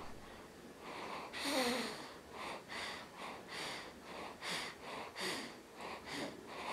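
Newborn baby's snuffly breathing: short noisy breaths about every three-quarters of a second, with a brief squeaky grunt about a second and a half in.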